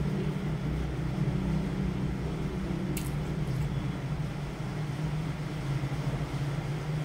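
Heavy rain falling, a steady hiss with a low hum beneath it; two short clicks about three seconds in.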